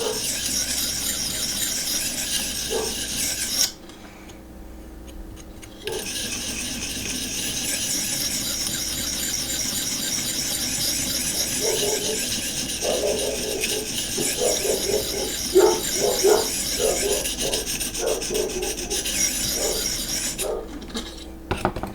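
600-grit sharpening stone of a Vipersharp guided sharpening system stroking along a steel knife edge to set the secondary bevel: a steady scraping rasp, which stops for about two seconds around four seconds in and then resumes.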